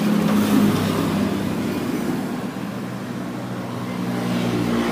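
A motor vehicle's engine running steadily at low speed over street noise, its pitch rising slightly near the end.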